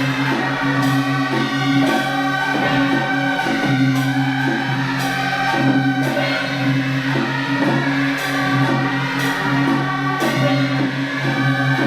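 Music with long held low notes and sharp hits scattered through it.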